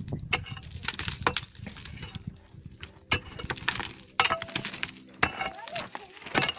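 A steel pick striking hard, rocky gravel in a dig bank, about six blows roughly a second apart, each with a short metallic ring. Loose rock and dirt clatter down between the strikes. This is very hard ground to dig.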